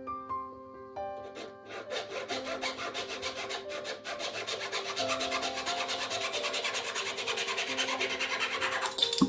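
Wood being scraped or rasped by hand in quick back-and-forth strokes, about four a second, starting about two seconds in and stopping suddenly near the end, while a wooden coffee spoon is shaped. Soft piano music plays underneath.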